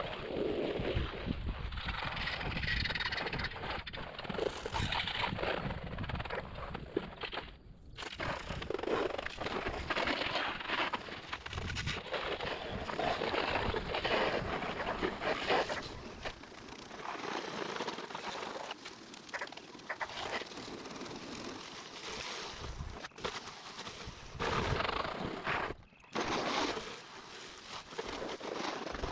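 Hissing noise of house washing with a pressure-washing rig, in short clips with abrupt cuts.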